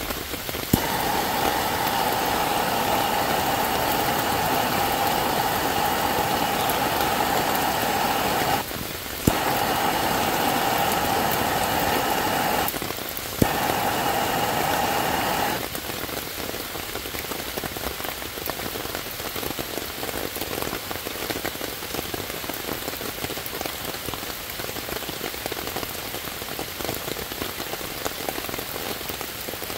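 Handheld gas blowtorch hissing steadily, started with a click about a second in, cutting out twice briefly and relit with a click each time, then shut off about halfway through. Steady rain pattering on wet leaves and ground.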